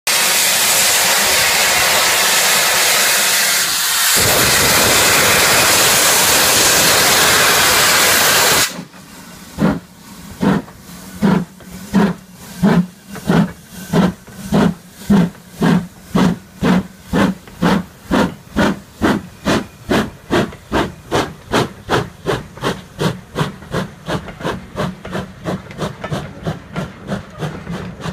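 LMS Ivatt Class 2MT steam locomotive 46512 starting a train: a loud, steady hiss of steam for about eight seconds that cuts off suddenly, then the exhaust beat, about one and a half chuffs a second and quickening, fading as the engine pulls away.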